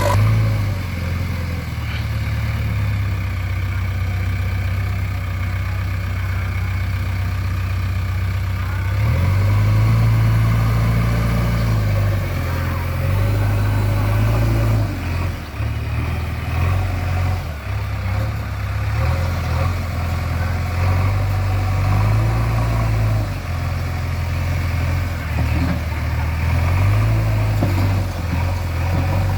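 JCB 3DX backhoe loader's diesel engine running, its revs rising and falling. It runs higher for a few seconds about a third of the way in, then dips and climbs again several times.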